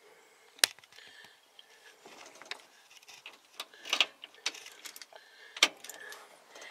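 A bunch of keys jingling, with a key scraping and clicking into the truck's ignition switch: a few sharp clicks, the loudest less than a second in, and lighter jingles between.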